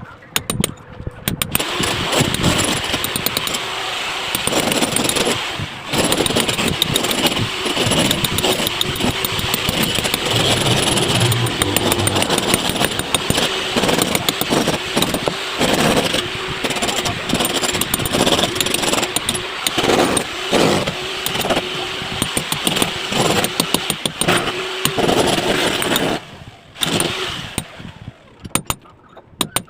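Electric angle grinder running under load, cutting into masonry with a dense, gritty noise and a steady whine that rises and dips as the disc bites. It starts about a second and a half in and stops a few seconds before the end.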